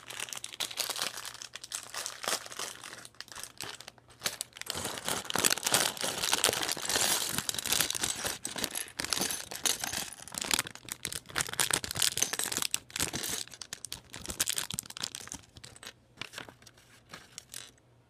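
Clear plastic parts bag from a Lego set crinkling and rustling as it is handled and opened to get at the pieces. It starts abruptly, is densest in the middle and thins out near the end.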